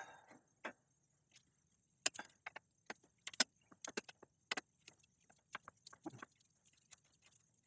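Scattered, irregular sharp metallic clicks and clinks of hand tools and parts on a bicycle crank as it is worked off the bottom bracket spindle.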